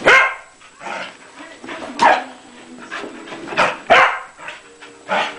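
Pembroke Welsh Corgi barking in play: a series of short, sharp barks, about one a second, with two close together near the middle.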